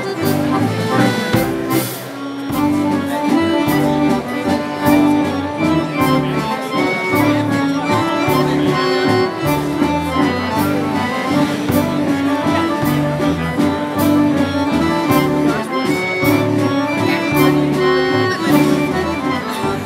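Live dance band playing: two accordions carry the melody over electric bass and electric guitar, with a drum kit keeping a steady beat.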